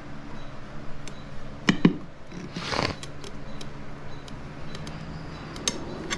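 Handling of tire-changing tools: a few sharp metallic clicks and knocks, two of them close together just before two seconds in, and a short scrape a little later, over a steady low hum.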